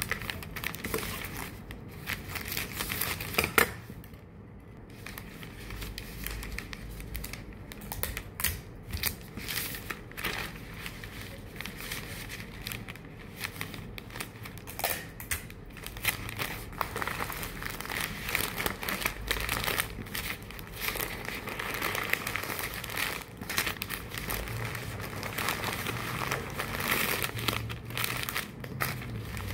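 Irregular crinkling and rustling of something being handled, full of small clicks, with one sharp knock about three and a half seconds in.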